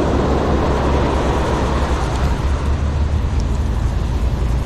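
Steady low rumble of wind on the microphone, mixed with waves washing up the beach.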